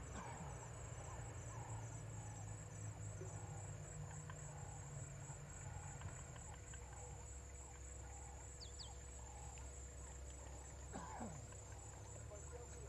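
Waterhole ambience in the bush: a steady, pulsing high-pitched insect trill, with a bird repeating a short note about twice a second for the first several seconds and a louder falling call near the end.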